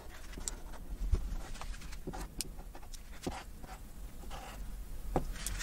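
Chalk marker drawing on a chalkboard wall: scattered faint taps and short scribbling strokes of the marker tip.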